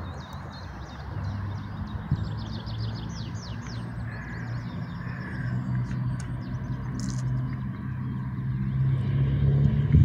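Small birds chirping in quick repeated trills, over a low engine hum that grows steadily louder toward the end.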